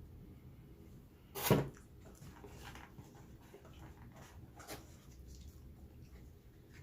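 Eating noises: one short, loud mouth sound about a second and a half in, then a few soft chewing and smacking sounds.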